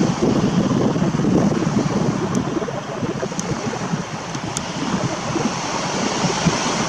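Steady wind blowing across the microphone, a loud even rush with no clear tones.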